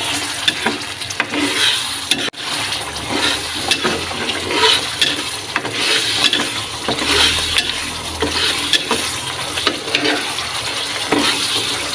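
Spice paste thinned with tamarind water sizzling and bubbling in a wok, while a metal spoon stirs it and scrapes against the pan in quick, repeated strokes. The sound drops out briefly about two seconds in.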